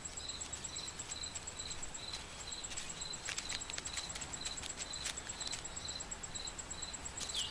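Faint woodland ambience: an insect chirping steadily, a little over two high chirps a second, with scattered faint ticks and clicks in the middle.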